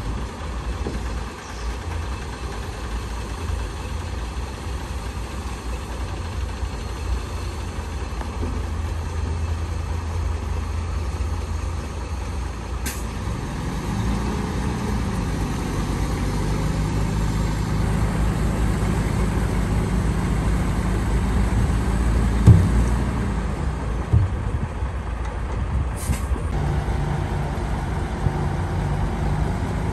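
Heavy diesel engines of a bulldozer and dump truck running at a work site, a low rumble that grows louder about halfway through as a stronger engine note comes in. Two short hisses of air and a couple of sharp knocks break through along the way.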